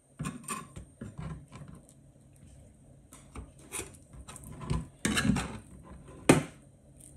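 Knife blade scraping and tapping on a plastic chopping board as mullet roe is scraped out of its membrane: a run of short scrapes and knocks, with one sharp knock a little after six seconds in.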